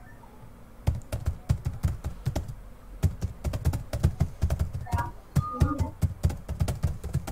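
Computer keyboard being typed on in quick, irregular runs of keystrokes. They start about a second in, with a brief pause near the three-second mark.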